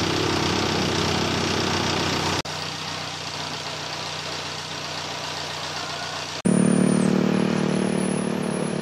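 A vehicle engine running. The sound changes abruptly about two and a half and six and a half seconds in, and the last part is louder, with a steady pitched hum.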